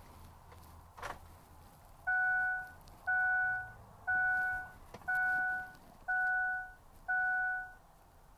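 2005 Ford F-250's dashboard warning chime beeping six times, about once a second, each beep a clear steady tone. A single click comes about a second in, before the chimes.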